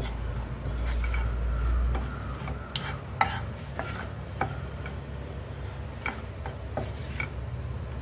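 A wooden spatula stirs cumin seeds and asafoetida in hot oil in a nonstick frying pan. There is a light sizzle and several sharp scrapes and taps of the spatula against the pan. A low background hum stops about two seconds in.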